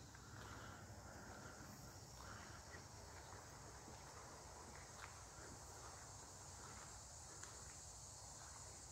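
Near silence in woodland: a faint, steady insect chorus, with a few faint clicks about five and seven and a half seconds in.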